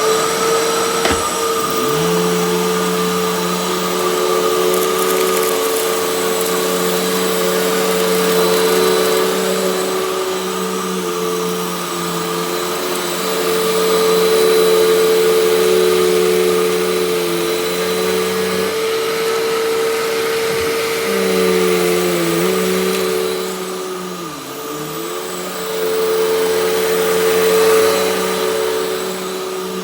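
Hoover WindTunnel Max UH70600 upright vacuum cleaner running as it vacuums up a test mess. Its motor whine rises at the start, then holds steady and loud, and dips in pitch twice about three quarters of the way through.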